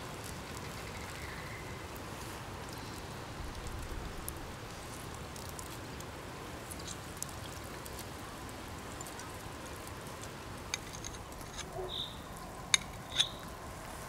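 Food sizzling over a crackling campfire: a steady hiss with scattered sharp pops, two loud pops near the end. A few short bird chirps near the end.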